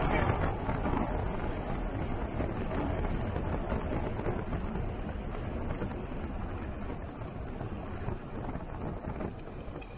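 Wind rushing over the microphone of a moving e-bike, an even roar with road noise, slowly dying down toward the end.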